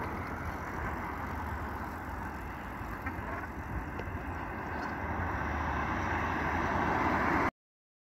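Steady outdoor road noise, with passing traffic and a low rumble, that cuts off abruptly to silence shortly before the end.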